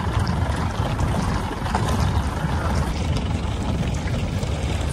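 Steady low rumble of an open safari jeep on the move, its engine running under road and wind noise.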